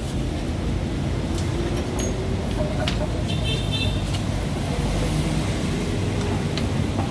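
A vehicle engine running steadily at a low hum, with a few light clicks and a brief high-pitched chirp about three and a half seconds in.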